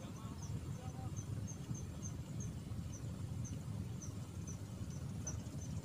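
Steady low outdoor rumble on the shore, with a faint high-pitched chirp repeating about two or three times a second from a small bird or insect.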